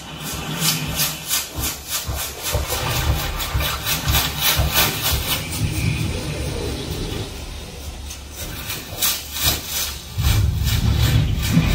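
A film soundtrack with nature effects played through a home theater speaker system and heard in the room. Quick repeated scraping or tapping strokes, a few a second, run over a deep rumble that swells near the end.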